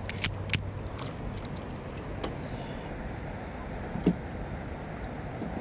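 Handling noises in a fishing kayak: a few sharp clicks and a dull knock about four seconds in, over a steady hiss.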